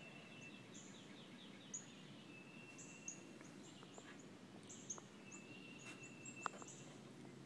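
Faint birdsong: short high chirps repeated every second or so, with a thin, held high whistle twice, and a few soft ticks.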